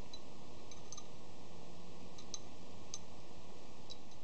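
A handful of faint, irregular light metallic clicks as small steel parts of a Craftsman ratchet, its toothed pawl among them, are handled and fitted into the ratchet head, over a steady background hiss.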